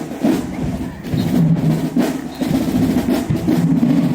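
Marching band playing: low brass holding sustained notes over drumline hits.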